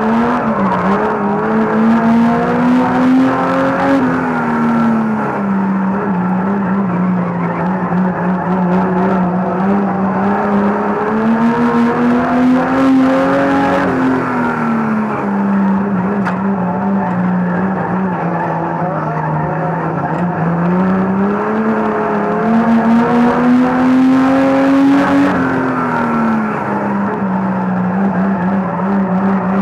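A banger racing car's engine, heard from inside its own cabin. Its pitch climbs slowly along the straights and drops sharply into the corners, three times over as it laps the oval.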